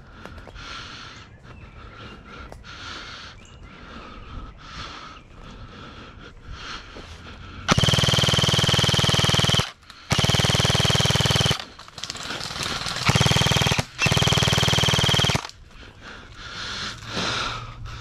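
Airsoft electric gun firing four long full-auto bursts of about one and a half to two seconds each, starting about eight seconds in: a rapid, even rattle of shots with a steady high whine from the gearbox motor. Before them, quiet rustling of footsteps through undergrowth.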